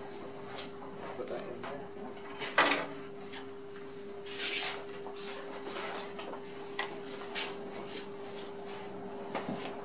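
Electric potter's wheel running with a steady hum, with a few light clicks and knocks over it; the sharpest, about two and a half seconds in, comes as the calipers are set down on a wooden shelf.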